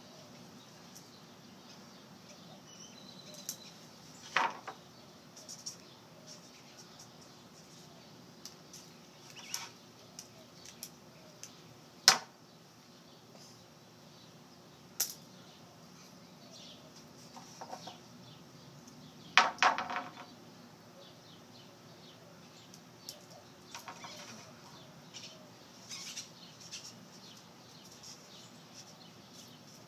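Pens stabbed hard into a wooden board: sharp knocks at irregular intervals, the loudest about twelve seconds in and a quick cluster of them around twenty seconds, with lighter clicks and clatter in between.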